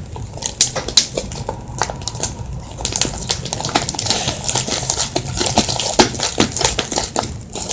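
Fluffy slime being kneaded and squished by hand, giving off irregular sticky clicks and crackling pops that come thicker in the middle.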